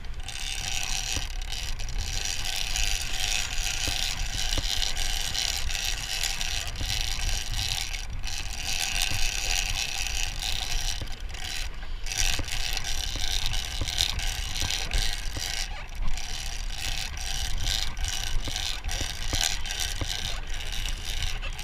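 Big-game trolling reel being cranked by hand, its gears and clicker ratcheting in a rapid run of clicks as line is wound in. A boat's engine rumbles low underneath.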